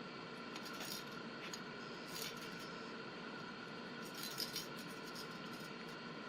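A dog playing with a homemade cat toy ring: short bursts of light rattling and clinking, three times, over a steady hiss.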